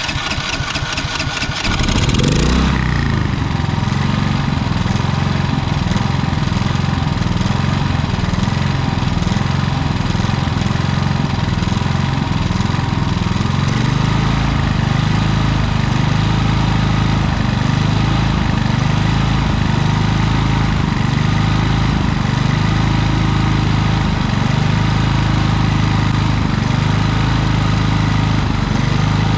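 Predator portable generator's small single-cylinder four-stroke engine running unevenly, its speed climbing about two seconds in and then holding with a fluctuating note. The surging persists after a carburetor jet cleaning and is later traced to a misadjusted idle stop screw.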